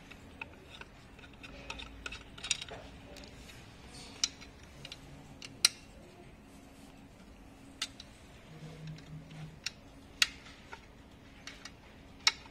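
Irregular sharp metallic clicks and taps from small screws and metal parts being handled while a scooter's lower stem bracket is taken apart. A dozen or so separate clicks, the loudest near the middle and again near the end.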